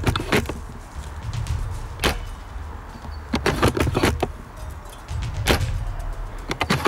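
Scattered clicks and knocks from handling a Tokyo Marui VSR-10 spring-powered airsoft sniper rifle carrying a scope camera, with a quick run of clicks a little after three seconds in, over a low rumble on the microphone.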